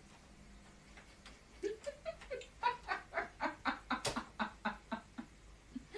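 A person laughing in a quick run of short ha-ha pulses, with a single sharp click about four seconds in.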